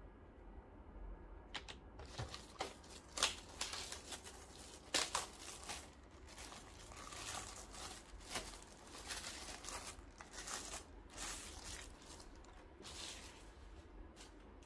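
Plastic packaging bag crinkling and rustling as it is handled, in short uneven crackles that start about a second and a half in and die away near the end.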